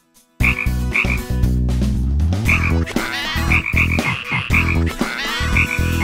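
Deep, repeated frog croaking, starting about half a second in and continuing in a steady run of croaks.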